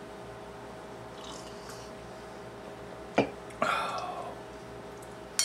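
A metal fork clinks against a china bowl about three seconds in and again at the very end, with a short scraping sound in between as it works through the spaghetti, over a faint steady hum.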